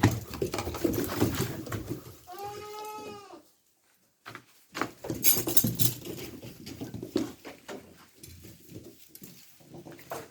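A goat bleats once, a single wavering call about two seconds in. Before and after it there is a busy run of scuffling and rustling noise from the animals.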